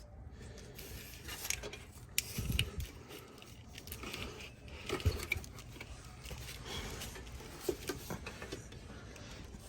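Handling noise from hands working at a truck's licence-plate light: scattered light clicks, taps and rustling, with a couple of soft low thumps about two and a half and five seconds in.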